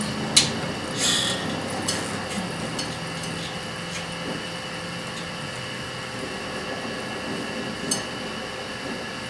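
Steady hiss of a welding torch while a bushing is tack welded into a steel door frame, with a few sharp metal taps about half a second in, about a second in, and near the end.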